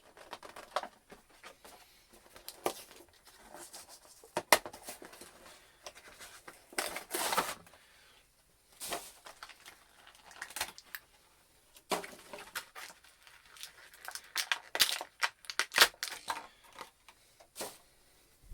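An action figure's cardboard-and-plastic box being opened by hand: irregular tearing, crinkling and sharp clicks of packaging, with a longer tear about seven seconds in.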